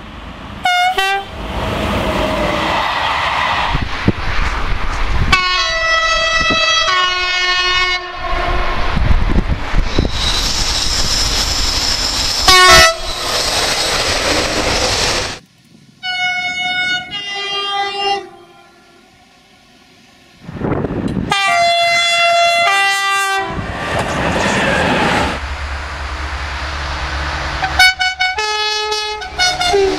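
A series of French train horn blasts from several recordings, cut back to back. Most blasts sound two notes, high then low, some short and some held for a second or two. Between them comes the rushing noise of trains running on the rails.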